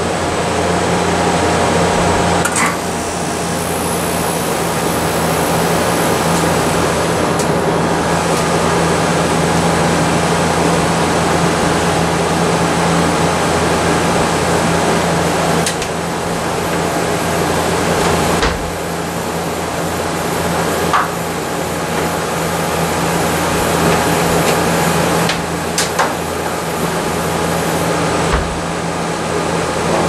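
Amana Cool Zone 18C3MD 18,000 BTU wall air conditioner running steadily, its fan blowing over a constant low hum. A few sharp clicks and knocks are scattered through it.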